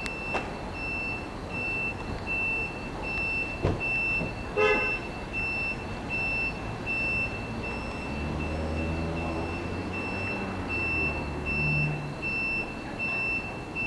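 An electronic warning beeper sounding steadily at about one and a half beeps a second. A short horn toot comes about five seconds in, and a low engine rumble swells and fades from about eight to twelve seconds in.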